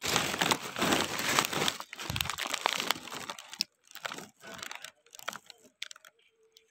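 Rustling and crinkling of katuday (Sesbania grandiflora) leaves and flowers being handled right against the microphone: dense for the first three seconds, then in scattered rustles that die away near the end.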